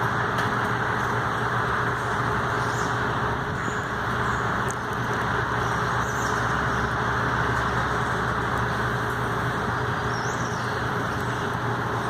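A steady mechanical hum and rush with a low drone that runs unbroken. A few faint, short, high bird chirps come about three, six and ten seconds in.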